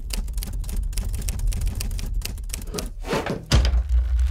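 Typewriter keys clacking in a fast, uneven run, used as the sound effect for text being typed out. About three seconds in comes a short swish, then a heavy low thud whose deep rumble lingers.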